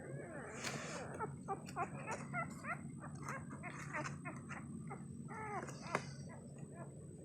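Newborn Labrador retriever puppies squeaking and whimpering: a quick series of short, high squeaks, with a longer whining cry and a sharp click near the end.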